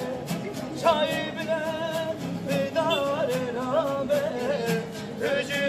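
Street buskers playing acoustic guitars with steady strumming, about three strums a second, while a man sings a wavering, ornamented melody in phrases over them.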